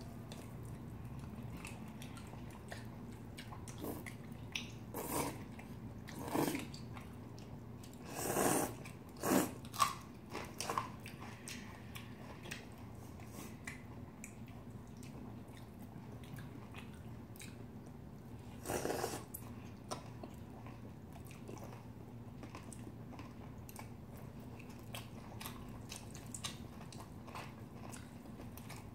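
Close-up eating sounds of two people eating cold noodles and pork belly: soft chewing throughout, with a cluster of short, louder bites or noodle slurps between about four and eleven seconds in and another near nineteen seconds.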